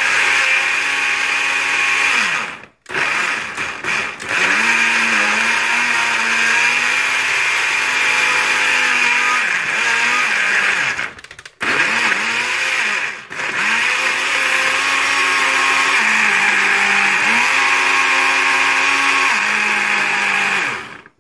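Countertop jug blender motor running at speed, blending chunks of fruit with milk into a smoothie. Its pitch dips and recovers several times under the load. It stops briefly twice, about three seconds and about eleven seconds in, restarts each time, and cuts off right at the end.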